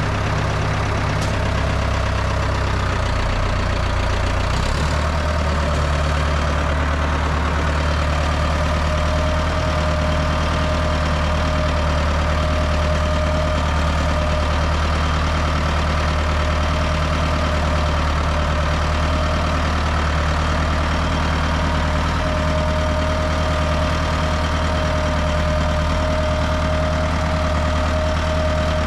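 Ford 5000 tractor engine running steadily at low speed, with a slight change in engine note a few seconds in. A higher steady tone comes and goes over it.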